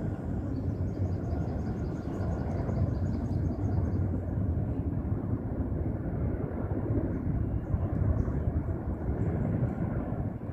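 CH-47 Chinook tandem-rotor helicopter flying past, a steady low rotor rumble.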